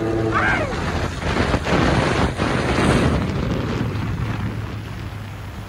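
Motorcycle engines running at speed under heavy wind noise on the microphone, with a short shout about half a second in.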